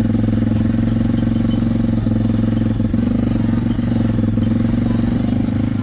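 A small farm vehicle's engine running steadily while driving, a loud even hum.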